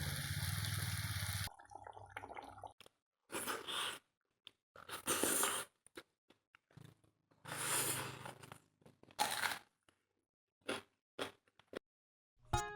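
A string of short cut-together eating sounds: crunching and chewing in brief bursts separated by silent gaps.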